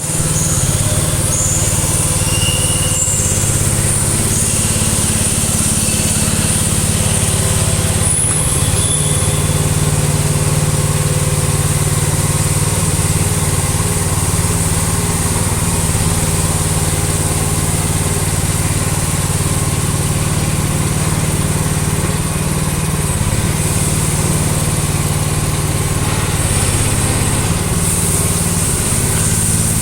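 Rippa R319 mini excavator's engine running steadily, with a few brief high-pitched whines in the first several seconds.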